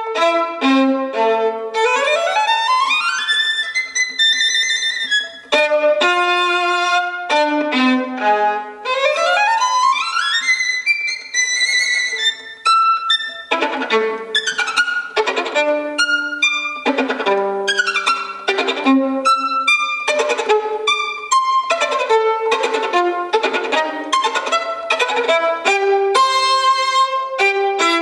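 Unaccompanied violin played with the bow in a fast passage: quick rising runs up the strings, repeated several times, and from about halfway on a busy string of short, separate notes.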